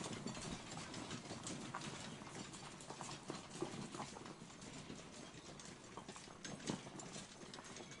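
Village outdoor ambience: a faint background hush broken by scattered, irregular knocks and clacks, the sharpest about three and a half and nearly seven seconds in.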